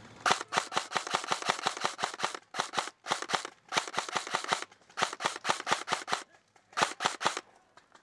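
Airsoft guns firing in rapid full-auto bursts: a long string of sharp cracks, then several shorter bursts with brief pauses between them.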